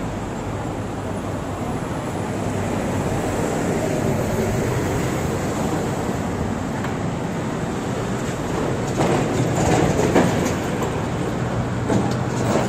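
Steady city road-traffic noise, with a red double-decker bus running close by; a low steady engine hum comes in past the middle, and a few sharp clatters sound near the end.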